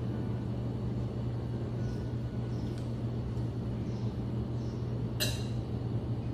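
Steady low hum of room background noise, with one sharp click about five seconds in.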